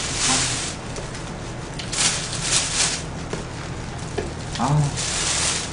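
Plastic bag crinkling as it is handled, in three bursts.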